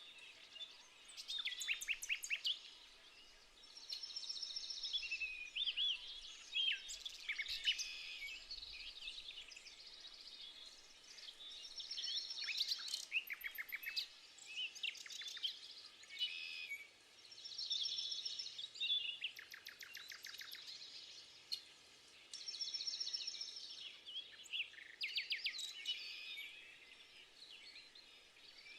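Several songbirds singing and calling over one another, with short trilled phrases and quick runs of chirps coming every few seconds.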